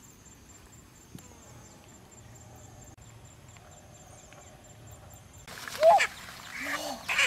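A few seconds of quiet outdoor ambience with a faint steady high tone. Then, about five and a half seconds in, a chicken squawks loudly several times amid rustling grass as it is caught.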